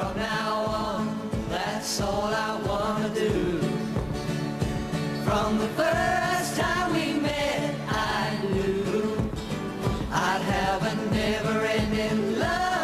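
Background music: a song with a melody line over steady accompaniment.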